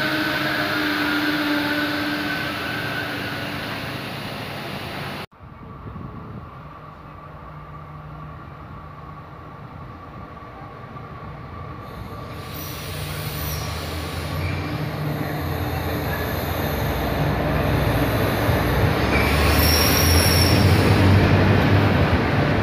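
Passenger trains on the tracks beside a station platform. First a train of coaches rolls past with steady wheel-on-rail noise. After an abrupt cut about five seconds in, an electric multiple unit approaches and passes, its rumble building steadily, with high-pitched whines coming and going.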